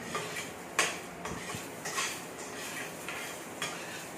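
Spatula scraping and clinking against a stainless steel frying pan while onions are stirred and sautéed in oil. The strokes are irregular, and the sharpest one comes about a second in.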